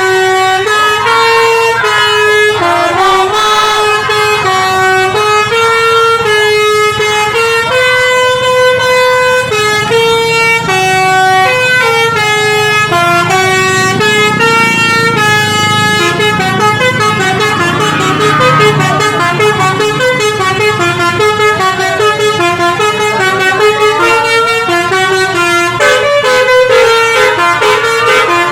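Tour bus's multi-tone telolet (basuri) horn playing a long, loud melody, the notes changing about every half second. The bus engine's low rumble rises underneath about halfway through.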